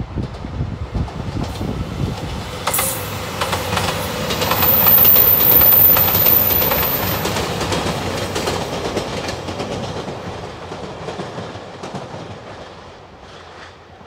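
JR Shikoku 2700 series diesel express train of four cars passing, its wheels clattering over the rail joints. It grows loudest about five seconds in, then fades as the train goes away.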